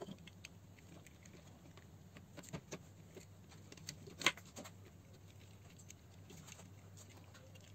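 Faint scattered clicks, taps and rustles of plastic parts and wires being handled as a T5 lamp holder is pushed onto the plastic fitting housing, with one louder click about four seconds in.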